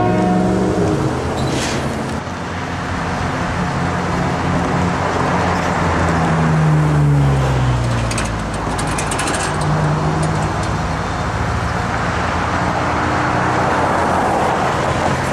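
Cars and trucks passing on a street, a steady wash of tyre and engine noise, with one vehicle's pitch dropping as it goes by. A train horn blast cuts off at the very start.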